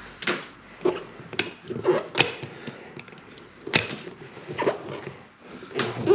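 Electric heated-blade tire cutter working across the tread of a Hoosier dirt late model racing tire, cutting grooves and sipes. It gives a run of short, sharp strokes, roughly two a second at uneven spacing.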